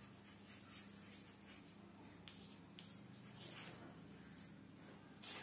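Chalk writing on a blackboard, faint scratching with a few light taps, then a brief louder noise near the end.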